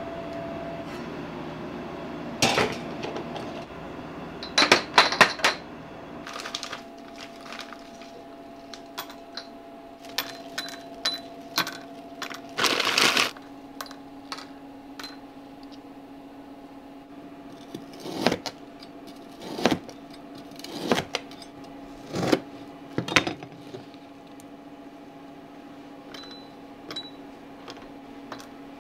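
Restaurant kitchen work: scattered clinks and knocks of dishes and utensils over the steady hum of kitchen equipment, with a short hiss about 13 seconds in.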